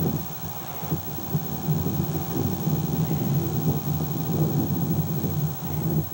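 A steady low hum that wavers in loudness.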